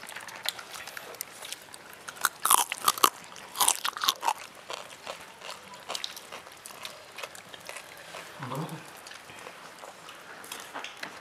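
People eating with their hands from a shared tray of rice and grilled fish: crunching and crackling, loudest in two clusters of sharp crackles a couple of seconds in, with scattered clicks after.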